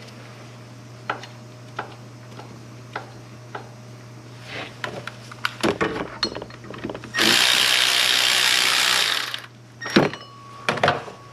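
Cordless electric ratchet running for about two seconds, a little past the middle, driving a pump mounting bolt home, with small clicks and knocks of tool handling before and after.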